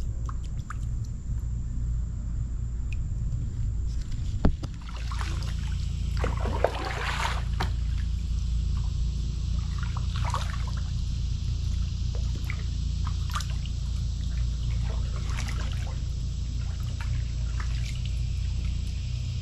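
Kayak paddle strokes, the blades splashing into the water and trickling off, recurring every two to three seconds, over a steady low rumble.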